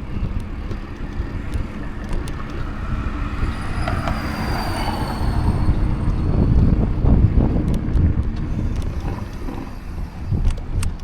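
Riding noise from a mountain bike on a paved road: tyre rumble and wind on the microphone. It grows louder in the middle, where a faint falling whine passes through.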